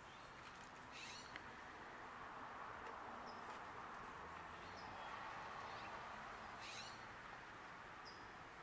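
Faint outdoor ambience: a steady soft hiss with scattered short, high bird chirps, and two fuller high calls about a second in and again near the end.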